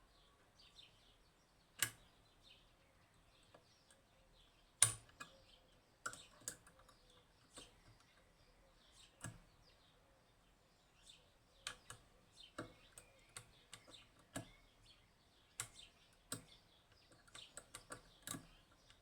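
Irregular sharp metallic clicks and ticks of lock picks working inside a Union (Chubb) G110 five-lever lock, the levers being lifted and set one by one, with a few loud clicks among softer ones and a quick run of clicks near the end.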